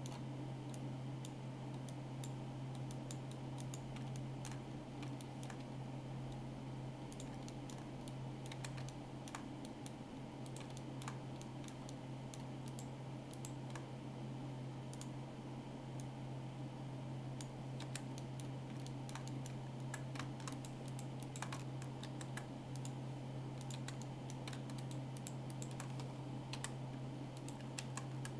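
Scattered, irregular clicks of a computer keyboard and mouse in use, over a steady low hum.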